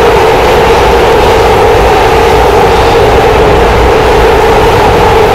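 PATH train car running at speed, heard from inside the car: loud, steady rumbling running noise with a steady droning tone from the wheels and traction motors.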